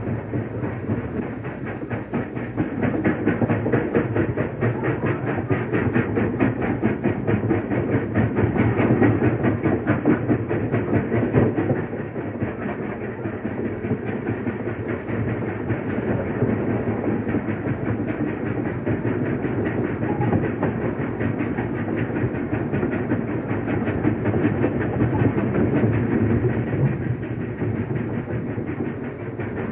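Pennsylvania Railroad K4s steam locomotive and its passenger train passing at speed: the engine's running noise builds to its loudest around ten seconds in and eases a little at about twelve seconds. After that the passenger cars' wheels clatter in a fast, steady rhythm over the rail joints.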